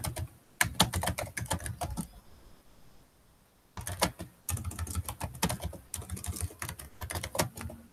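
Typing on a computer keyboard: two runs of quick keystrokes with a pause of about a second and a half between them.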